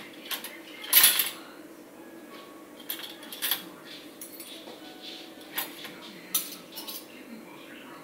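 Metal cutlery clinking as pieces are pulled one by one from a dishwasher's cutlery basket: a string of irregular sharp clinks, the loudest about a second in.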